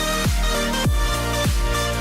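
Electronic background music: a deep kick drum about every 0.6 s under sustained synth chords.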